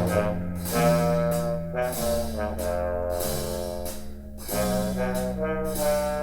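Big-band jazz with a brass section, trombones and trumpets holding chords over a walking bass line.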